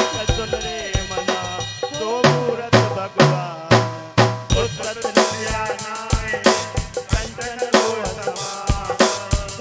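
Devotional bhajan music: a steady drum beat under a wavering melody, with heavier bass-drum strikes about two to four seconds in.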